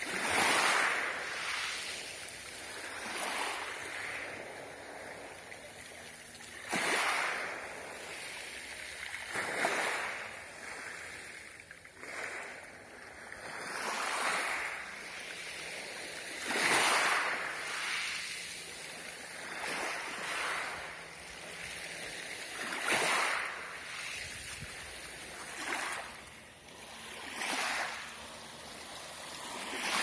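Small Black Sea waves washing in over a shingle beach of small pebbles: a rush of water that swells and fades every two to three seconds.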